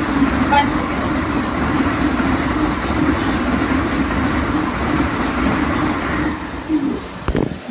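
Vande Bharat Express electric multiple-unit train running past at speed: a steady rushing roar of wheels on rail and air, thinning out about six seconds in.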